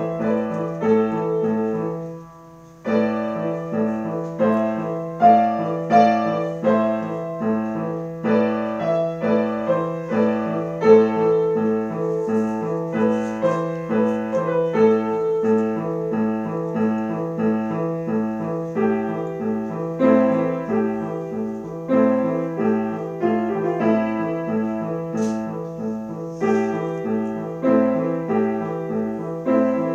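Grand piano being played: steady repeated low notes under a melody, with a short pause about two seconds in.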